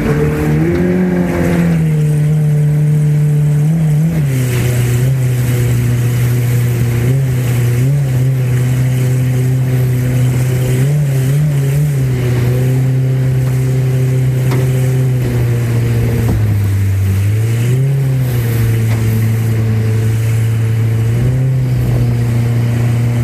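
Mercury outboard jet motor running at low throttle, easing the boat up a shallow rapid. The engine pitch rises about a second in, then dips and comes back up several times as the throttle is worked.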